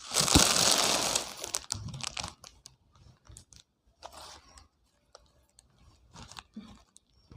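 Packaging being torn open and crinkled as clothes are unwrapped: a loud tearing rustle over the first second and a half, then scattered softer crinkles and rustles.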